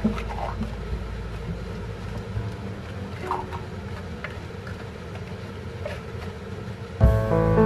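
Wooden spatula stirring crabs in a simmering coconut-milk gravy in a pan, with a few soft knocks over a steady low rumble. Background music comes in near the end.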